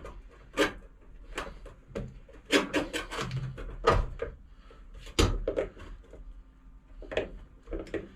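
Irregular knocks, clicks and clatter of hard objects being handled, about one or two a second, over a faint steady hum.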